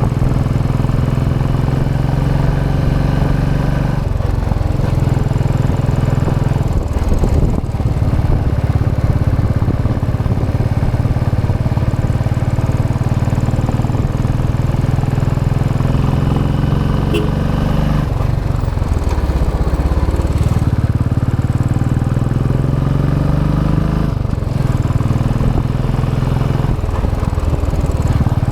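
Royal Enfield Classic 500 EFI's single-cylinder engine on its stock exhaust, running under way. The engine note climbs in pitch and drops back sharply several times, as it does when the rider accelerates and changes gear.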